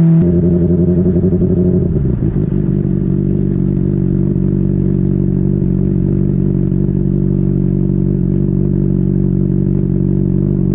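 Honda CBR600RR's inline-four engine coming down off a rev, its pitch falling over about the first two seconds, then idling steadily.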